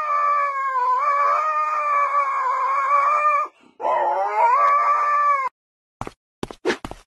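Husky howling: one long, slightly wavering howl that breaks off about three and a half seconds in, then a second howl that rises at its start and stops suddenly. A few sharp taps follow near the end.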